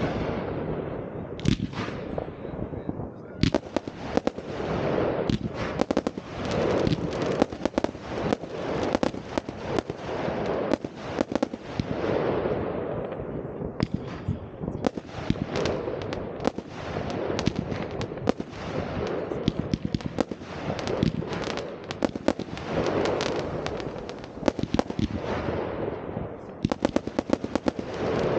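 New Year's Eve fireworks going off in a continuous barrage: many sharp bangs and firecracker reports over waves of dense crackling.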